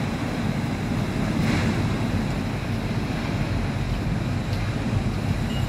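Heavy storm surf breaking on the beach ahead of an approaching hurricane, a steady rushing noise, with wind rumbling on the microphone.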